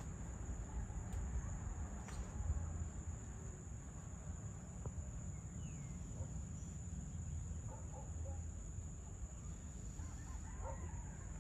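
Evening outdoor ambience: a steady high-pitched insect drone of crickets, over a constant low rumble. Faint short bird calls come about eight seconds in and again near the end.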